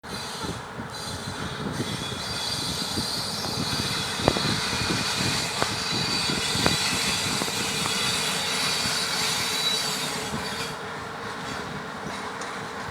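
Freight train wheels rolling on the rails with a steady clatter and a high wheel squeal that drops away about ten seconds in. Three sharp clanks ring out about four, five and a half, and nearly seven seconds in.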